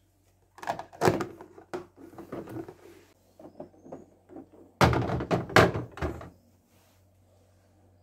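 Plastic egg tray and containers being handled and set onto a refrigerator's glass shelf: a run of knocks and clatters, heaviest about five seconds in, over a low steady hum.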